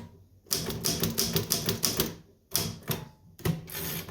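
Keys of an antique L.C. Smith typewriter being struck in quick runs of sharp clacks, three bursts of rapid typing with short pauses between.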